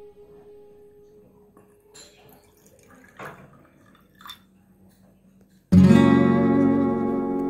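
A quiet stretch with a few faint splashes of liquid, about three and four seconds in, as soup is poured into a small clay pot. Near the end, acoustic guitar background music starts suddenly and loudly.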